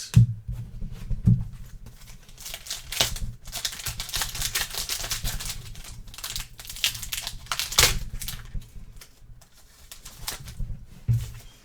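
A foil trading-card pack being torn open and its wrapper crinkled, with the cards handled: irregular crackling and rustling.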